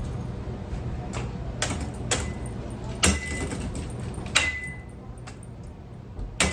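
Irregular metal clanks and knocks, about seven of them, a few leaving a short high ring, as ceiling fan parts are handled and knocked about.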